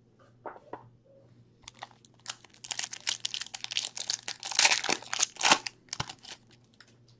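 Trading card pack's shiny wrapper being torn open and crinkled by hand. It starts with a few small crackles, then a dense run of sharp crinkling that is loudest a little past the middle.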